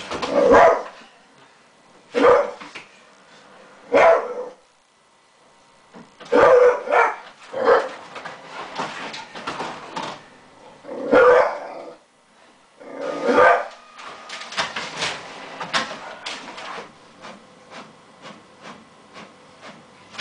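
Jack Russell terrier barking at a printer in loud single barks, one every second or two. For the last six seconds or so the barks give way to a quick run of clicks and rattles.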